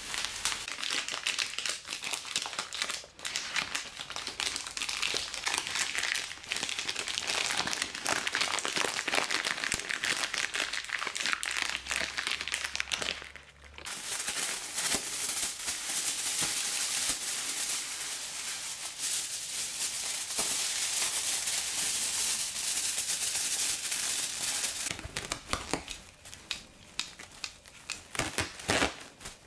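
Plastic packaging crumpled and crinkled by hand, a dense crackling. After a brief pause about halfway, a plastic bag gives a steadier crinkling. Near the end it thins to sparse crackles as cling film is handled.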